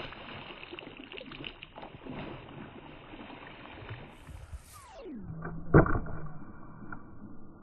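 Water splashing and sloshing as a hooked snakehead thrashes at the surface of the pond. About five seconds in the sound changes abruptly: a falling swoop, then a single sharp knock, the loudest moment.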